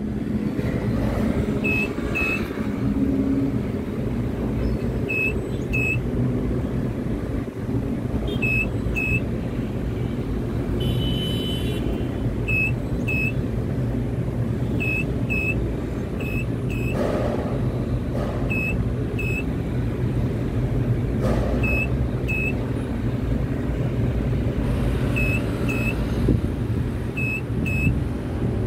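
Steady low hum and rumble of a tower crane's drive, with a short electronic double beep repeating every two to four seconds while the crane moves a hanging load.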